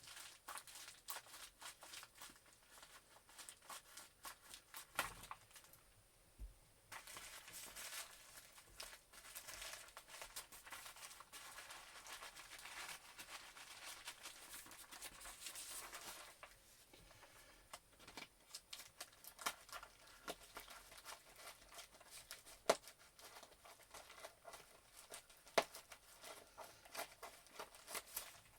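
Mail package being opened by hand: packaging crinkling and tearing, with a denser stretch of continuous rustling and ripping in the middle and scattered sharp clicks and taps of handling.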